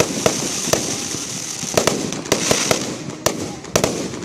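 Fireworks going off: about ten sharp bangs at uneven intervals, over a steady hiss.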